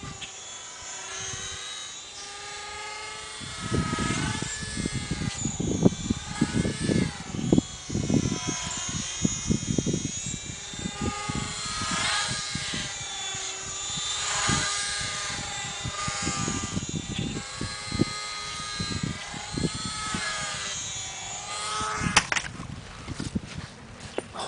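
Micro RC plane's tiny geared electric motor and propeller whining, the pitch sweeping up and down as the throttle changes and the plane passes back and forth, with wind buffeting the microphone from about four seconds in. Near the end there is a sharp knock and the whine dies away: the plane crashing.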